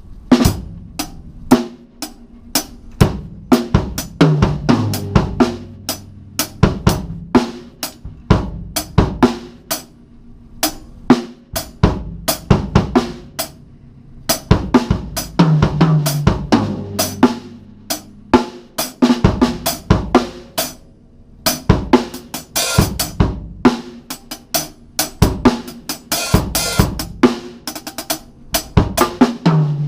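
Drum kit played with the snare wires on, recorded on a GoPro's built-in microphone: a steady beat of kick, snare and hi-hat with cymbal hits. Every so often a tom fill steps down in pitch, near the start, about halfway through and near the end.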